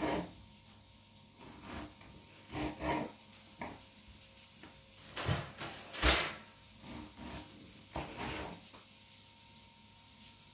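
Irregular knocks and scrapes of kitchen work on a counter, the loudest about six seconds in.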